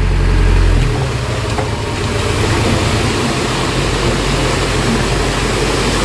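Small dump truck's engine running while its bed tips and a load of sand slides out through the swung-open tailgate. A steady low engine hum shifts about a second in, and a rushing hiss of pouring sand joins it.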